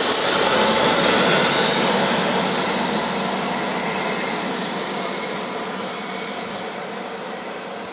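An HST (InterCity 125) passing and pulling away: the rear Class 43 power car's diesel engine running under power with a steady high-pitched whistle, over rumbling wheels. The sound fades steadily from about two seconds in as the train draws away.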